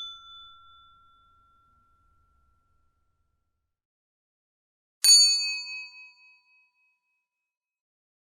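Electronic reminder notification chime: a single bright ding about five seconds in that rings out briefly and fades, after the last of an earlier chime dies away at the start.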